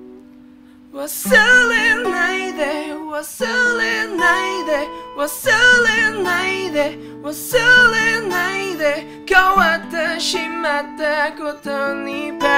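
A man singing a slow melody with wavering, bending pitch over acoustic guitar, the voice coming in about a second in after the last chord dies away.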